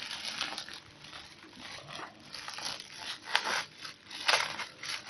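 Parcel packaging being torn open by hand, crinkling and tearing in irregular bursts, with the loudest rips about three and four seconds in.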